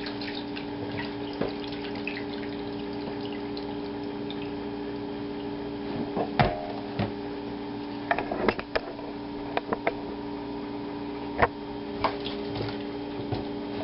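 Kitchen tap running steadily into a sink as raw chicken is rinsed, with a few sharp knocks and clatters of the container from about halfway through.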